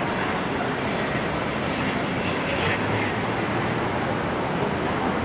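Steady running noise of a moving vehicle heard from aboard: an even rumble and rush with no distinct events.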